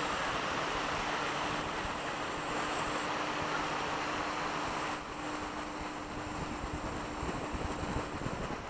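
Steady rushing wind noise on the microphone of a camera riding a chairlift, with a faint steady hum that stops near the end. It drops a little about halfway through, after which low gusts buffet the microphone.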